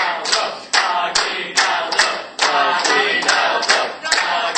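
A group of voices cheering and calling out together over steady rhythmic clapping, about two to three claps a second.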